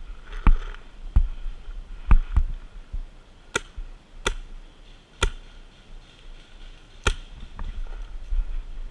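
Paintball markers firing single shots: about eight sharp pops at uneven intervals, a few louder and sharper than the rest.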